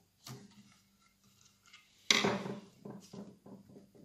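Small clicks from a Phillips screwdriver and the plastic body of a circular saw being handled at its battery cover, then a sudden louder clatter about two seconds in that fades out within about a second.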